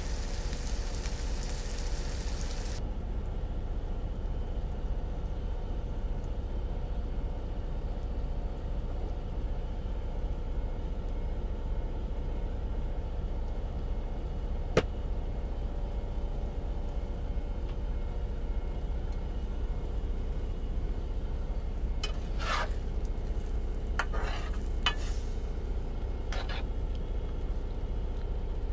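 Sausage, onions and tomatoes sizzling in a nonstick frying pan on a portable stove, the bright sizzle cutting off sharply about three seconds in. Then a quieter steady frying of the egg scramble over a low hum, with a single click midway and a spatula scraping and stirring in the pan several times near the end.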